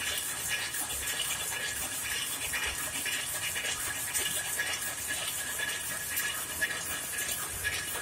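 Rapier loom with a tuck-in selvedge device running, a steady fast mechanical clatter of the weaving motion that does not let up.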